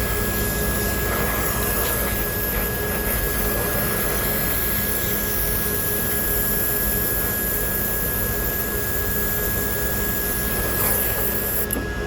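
Brazing torch flame running with a steady hiss while copper refrigerant lines are brazed onto an AC compressor; the hiss cuts off sharply near the end as the torch is shut off.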